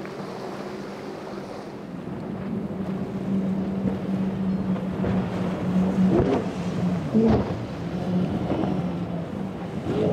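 Powerboat engines running with a steady hum that grows louder, over wind noise on the microphone and the wash of the sea.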